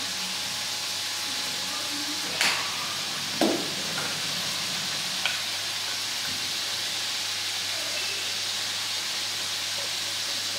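Steady sizzling of food frying in a pot on the stove, with a few light clicks and knocks as spice containers are handled over it.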